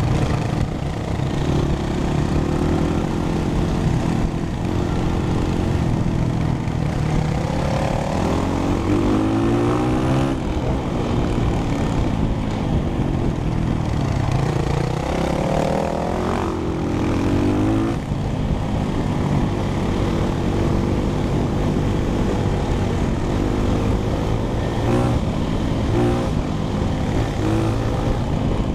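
Four-stroke dirt bike engine running under way, its pitch climbing and dropping again and again with throttle and gear changes.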